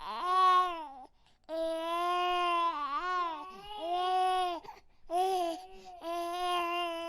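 Baby crying in three wails with short breaks for breath; the middle wail is the longest and wavers in pitch partway through.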